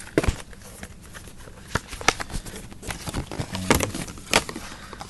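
Handling noise from an iPad box's contents being unpacked: irregular clicks, taps and rustles of cardboard and plastic as the charger and USB cable are lifted out.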